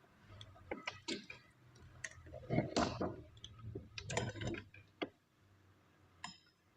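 Irregular clicks and light clatter of hard objects being handled, with a faint low hum underneath that stops about five seconds in.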